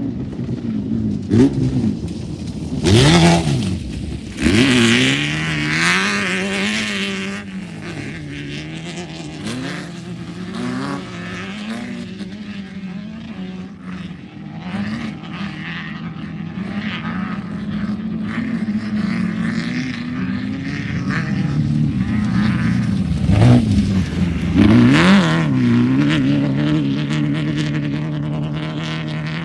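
Off-road race vehicles' engines: a steady engine drone, with loud revving that rises and falls in pitch as vehicles go past, about three seconds in and again around twenty-four seconds in.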